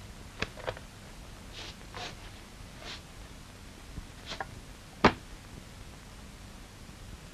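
A few scattered, irregular clicks and knocks over a quiet, hissy old film soundtrack, the loudest a single sharp knock about five seconds in.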